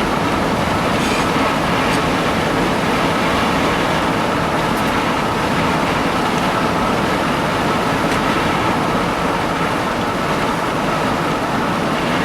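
Steady engine noise of a vehicle under way, an even rushing din with no breaks.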